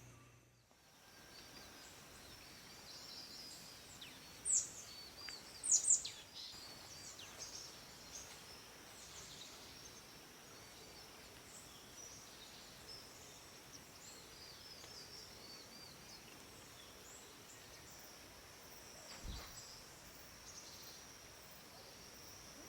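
Forest birds chirping, with a few loud, sharp, falling calls about four and six seconds in, over a faint steady high-pitched hum.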